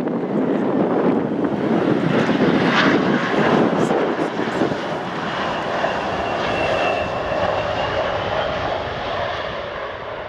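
The CRJ-900LR's rear-mounted CF34 turbofan engines running loud: a broad jet rush that eases about halfway through, leaving a steady high whine that fades away near the end.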